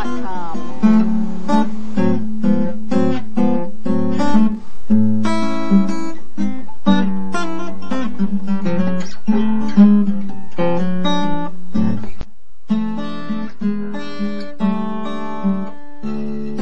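Background music: acoustic guitar picked and strummed, with a brief break about twelve seconds in, after which it plays a little quieter.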